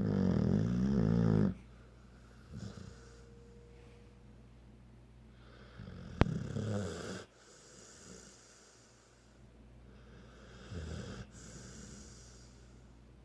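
Loud snoring in slow cycles: a long, wavering pitched snore at the start, another about six seconds in, and a shorter one near the end, with softer breathy sounds between them. A sharp click sounds once, about six seconds in.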